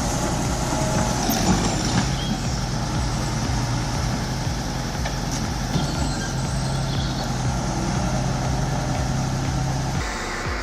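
MB Trac 1100 tractor's diesel engine running steadily as it drags a heavy beech log through mud. The engine drone cuts off near the end.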